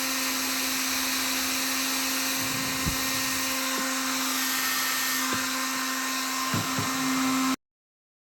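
Xiaomi Mi Ionic H300 hair dryer running, its fan motor giving a steady whine over a rush of blown air, with a few light handling clicks. The sound cuts off abruptly near the end.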